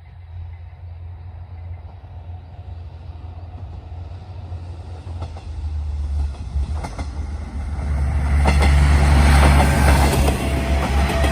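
Two-car KiHa 110-series diesel railcar set (KiHa 111 + KiHa 112) approaching and passing, its engine and running noise growing louder from about halfway in. Its wheels click over the rail joints as it comes level.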